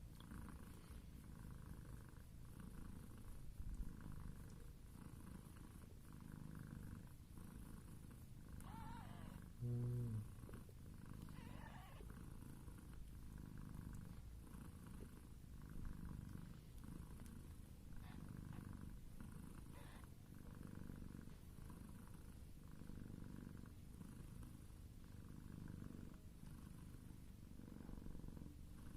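Mother cat purring steadily and rhythmically while nursing her newborn kittens, with a couple of brief kitten mews about nine and twelve seconds in.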